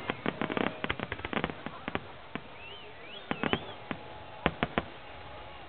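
Fireworks exploding: a quick run of sharp crackling pops in the first second and a half, then scattered single bangs. Faint rising and falling whistles can be heard in the middle.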